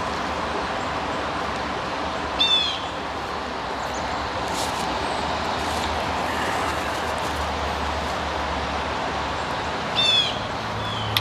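Steady rush of creek tailwater flowing, with a bird calling twice, about two and a half seconds in and again near the end; each call is a short, quick run of notes falling in pitch.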